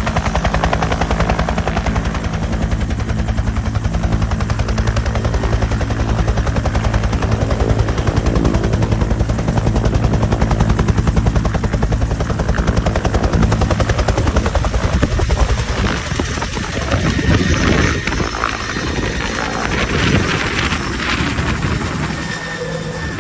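Full-size Bell UH-1 "Huey" helicopter running, its rotor giving a rapid, regular beat under a thin high whine. About fifteen seconds in, the steady beat weakens and the sound turns rougher and noisier.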